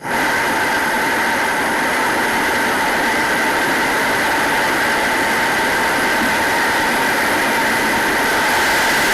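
Steady mechanical whirring with a constant whine over a hiss, like a small motor or blower running, starting abruptly and holding unchanged.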